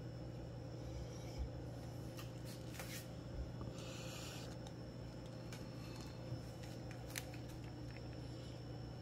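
Faint rustling and a few light clicks over a steady low hum, with a short burst of rustling about four seconds in.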